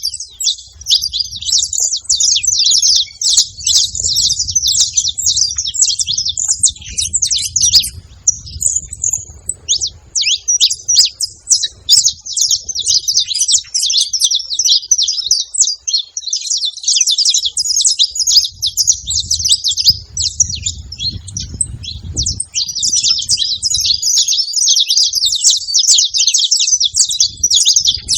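A group of saffron finches chirping in a dense, continuous chatter of quick high notes, with a brief lull about ten seconds in.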